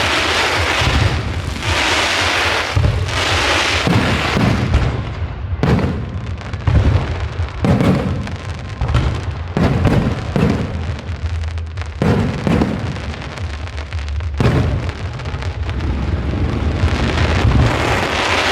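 Fireworks display going off: a dense crackling hiss at first, then sharp bangs about once a second, with crackle thickening again near the end.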